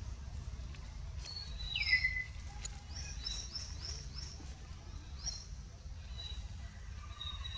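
Birds chirping and calling in the trees: short high rising chirps in quick runs, and one louder falling whistle about two seconds in, over a steady low background rumble.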